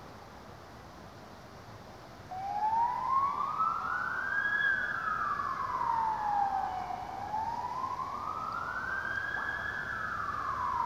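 A wailing siren starts about two seconds in and slowly rises and falls in pitch, going up and down twice.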